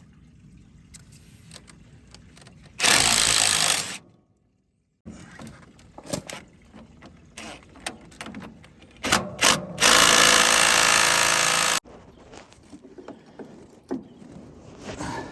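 A power tool run twice on the truck's steering fasteners: a burst of about a second, then after two quick trigger blips a longer run of about two seconds. Small metal clicks and knocks of hand work come in between.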